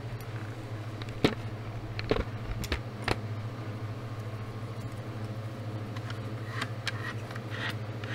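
A handful of sharp metallic clicks and clinks from handling a used dual-mass flywheel whose damper springs are broken, over a steady low hum.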